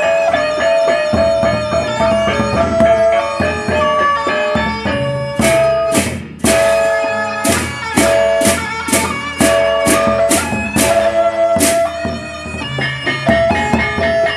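Sasak gendang beleq gamelan playing: large barrel drums beaten with sticks, gongs and cymbals under a held, stepping melodic line. About five seconds in, a run of cymbal crashes comes in at roughly two a second, stops briefly, and returns near the end.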